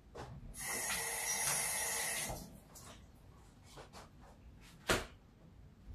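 Water pouring, a steady splashing hiss for just under two seconds, followed a few seconds later by a single sharp click.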